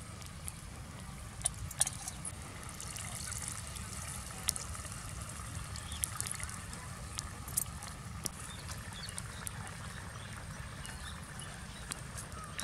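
Liquid trickling and dribbling into a pot of simmering curry as it is poured from a bowl and squeezed from a hand, with a few sharp clicks.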